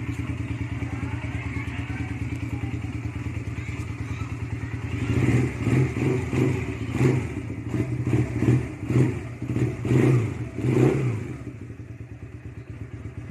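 Twin-cylinder engine of a Rebel 170 cruiser motorcycle idling steadily through its stock dual exhausts. From about five seconds in it is revved in a string of quick throttle blips for about six seconds, then drops back to idle.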